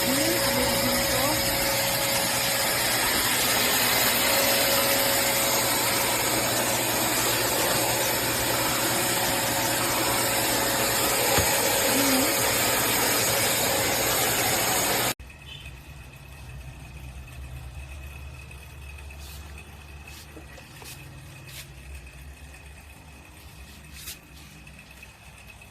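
Black+Decker 10 L wet & dry vacuum cleaner running with a loud, steady noise, which cuts off abruptly about fifteen seconds in, leaving a much quieter low hum.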